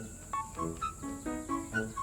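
Background music: a bouncy tune of short, quick notes, about four to five a second.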